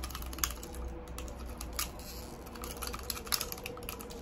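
Fingers picking and scraping at the top of a frozen plastic shaker cup: irregular small clicks and crackles of plastic and ice.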